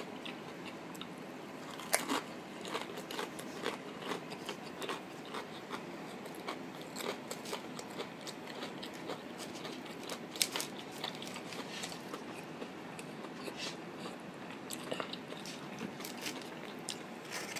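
A person chewing a mouthful of sandwich close to the microphone, with irregular crisp crunches and clicks throughout, the sharpest about two seconds in.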